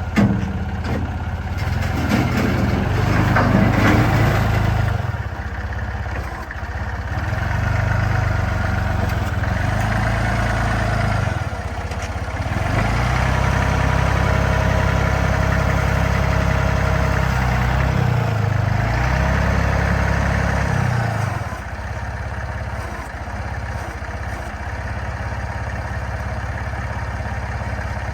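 Hyster S50C forklift's engine running, its speed and load rising and falling over and over as the machine works, loudest about four seconds in.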